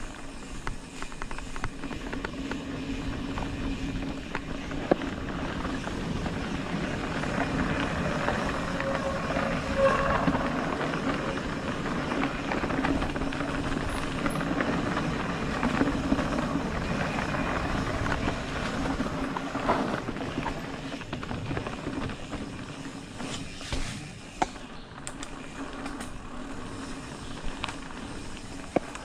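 Mountain bike riding down a dirt singletrack: tyres rolling over dirt and leaf litter and the bike rattling, with a steady low buzz and a few sharp knocks from bumps. The noise grows louder through the middle and eases off near the end.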